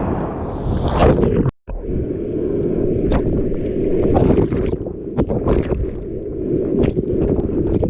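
Strong wind buffeting a GoPro's microphone over the low rumble of surf, with crackling gusts throughout; the sound cuts out completely for a moment about a second and a half in.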